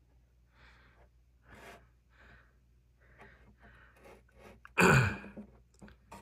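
A person breathing close to the microphone in soft puffs, then one loud sigh with a falling pitch about five seconds in.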